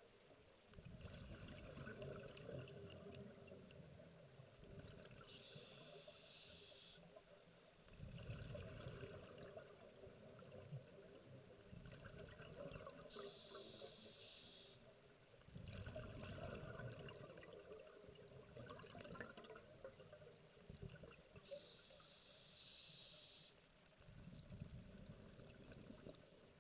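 Scuba diver breathing through a demand regulator underwater: slow breaths, each a short hiss as the regulator delivers air on the inhale, then a longer low bubbling as the exhaled air escapes, about three breaths in all. The sound is faint.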